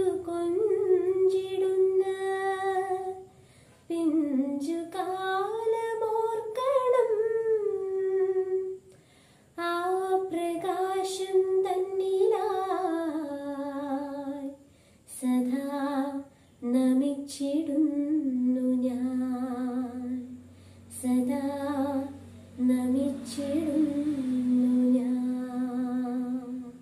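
A woman singing a devotional prayer solo and unaccompanied, in slow phrases of long held, gliding notes with short pauses for breath between them.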